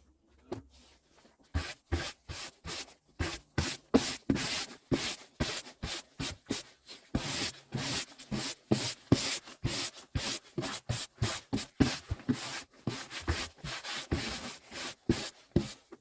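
Sandpaper being rubbed by hand over a wooden tabletop in quick back-and-forth strokes, about two to three a second. The strokes start about a second and a half in and stop near the end.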